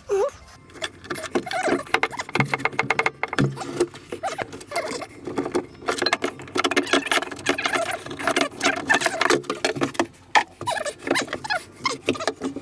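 Hands working on a boat head's plumbing: a dense run of clicks, knocks and short squeaks as PVC pipe, fittings and hoses are handled and worked loose. There is a fast, even run of clicks about three seconds in.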